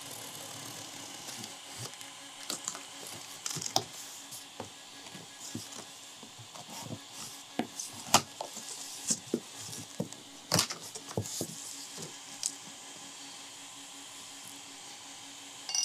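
Knife cutting the packing tape on a cardboard shipping box and the flaps being pulled open: scattered scrapes and rustles of cardboard with sharp clicks and knocks, the loudest about eight and ten and a half seconds in.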